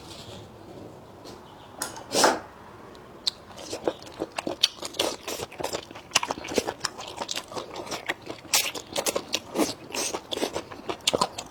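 Close-miked eating: a person biting and chewing food, with one louder bite about two seconds in and then a fast, irregular run of crunching clicks.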